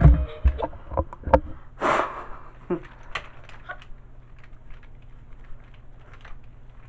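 Fisher-Price Sing & Spin Pablo talking toy on nearly dead batteries cuts off mid-song at the start, with a few clicks and knocks from the toy. A short breathy rush follows about two seconds in, then only faint ticks and handling noises as a hand grips the toy.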